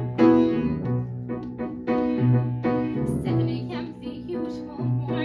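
Grand piano accompaniment, playing repeated chords over a low bass line.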